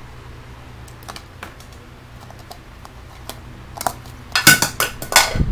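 Light clicks and taps close to the microphone, scattered at first, then a burst of louder clicking and rustling about four and a half seconds in: objects on a table being handled.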